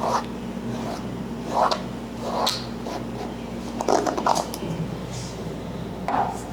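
About five short, irregular rustling and scratching sounds over a steady low electrical hum.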